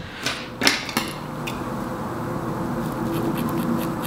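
Scissors snipping through the ends of wig hair: several sharp snips in the first second and a half, then fainter ones, over a steady background noise.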